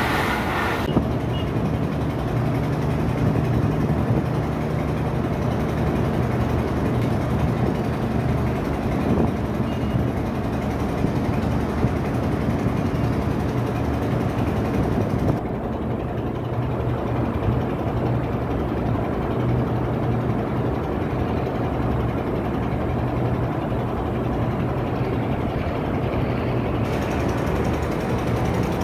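Steady low drone of a ship's diesel engine heard from on board, with a hiss of wind and water over it that thins out about halfway through.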